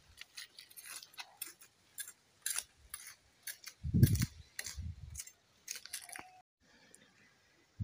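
Footsteps crunching over dry twigs and dead leaves: irregular crisp snaps and crackles, with two heavier thuds about four seconds in.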